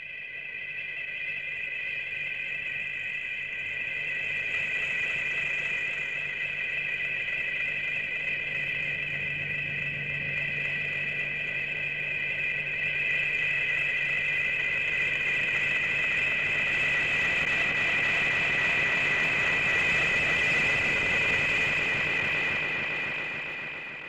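A sound effect from the Showa-era Gamera films: a long, steady high whine with a low hum and hiss beneath it. It fades in over the first couple of seconds and fades out near the end.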